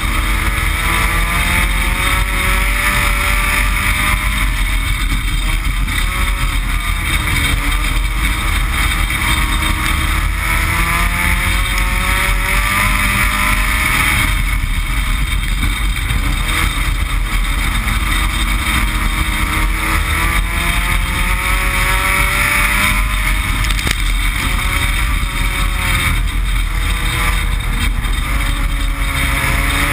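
Dirt-track race car engine running hard, heard from inside the stripped cockpit. Its revs rise and fall over and over as the driver gets on and off the throttle, under constant wind and road noise.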